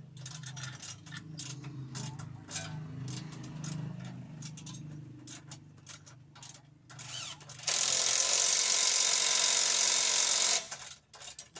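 Light metallic clinks and clicks of mechanic's hand tools being handled. About two-thirds of the way in, a loud steady rushing noise starts, lasts about three seconds and cuts off sharply.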